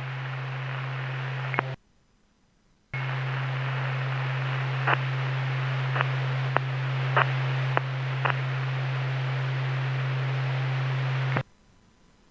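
Police radio scanner channel carrying a keyed, open microphone: steady static hiss over a low hum, with a few faint clicks. It drops out for about a second near the start, comes back, and cuts off sharply about a second before the end as the transmission unkeys.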